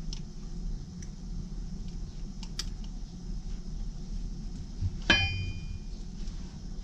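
Small metal parts clicking as they are handled on a workbench. About five seconds in comes one sharp metallic clang that rings briefly, all over a steady low hum.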